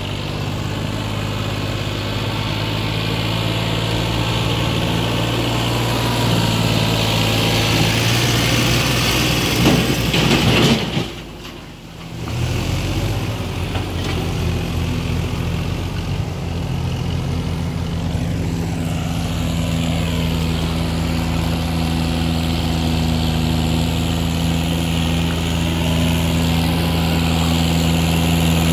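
Diesel farm tractor engines running steadily as tractors pull loaded trailers through shallow floodwater, with water churning around the wheels. The sound dips briefly about eleven seconds in, then a second tractor's engine grows gradually louder as it approaches.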